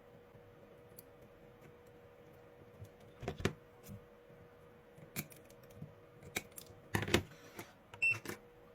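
Scattered clicks and knocks of small plastic and metal parts being handled as the protection board is fitted into a 12 V lithium power-tool battery pack, over a faint steady hum. The clicks are sparse at first and bunch together from about three seconds in.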